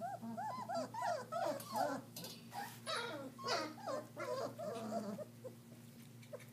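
Several three-and-a-half-week-old German shepherd puppies whimpering and squeaking: many short, high cries that rise and fall, several a second and overlapping, thinning out near the end.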